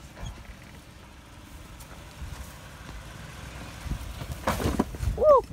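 Stock fourth-generation Toyota 4Runner's engine running low and steady as the truck crawls slowly over rock at walking pace. About four and a half seconds in comes a louder scraping noise, then a brief high squeak.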